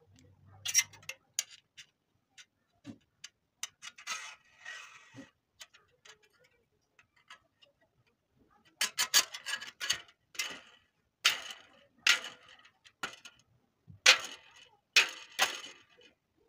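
Clicks and rattles of a cut-open aluminium beer can and a thin metal wire being handled and fitted together: scattered taps at first, then dense runs of rattling clicks through the second half.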